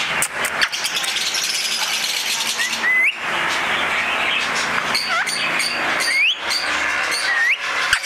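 Continuous dense chatter of many caged birds, budgerigars among them, full of short high chirps. Four short, sharp rising whistles cut through it in the second half.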